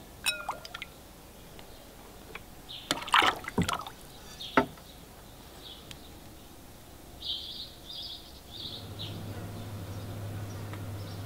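Liquid white glaze poured and sloshed out of a ceramic tea bowl, splashing loudest about three to four and a half seconds in. Birds chirp later, and a low steady hum comes in near the end.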